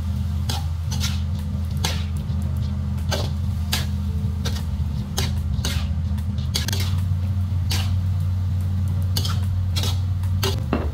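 Spatula knocking and scraping against a metal wok while stir-frying bean sprouts and tofu, in irregular sharp clacks, over a steady low hum.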